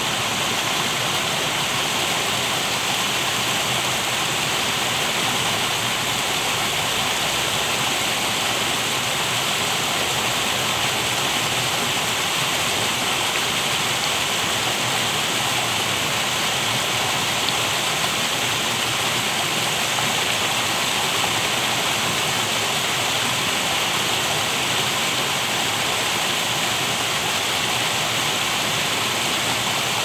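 Stream water rushing and splashing over rocks in a small cascade: a steady, unbroken rush.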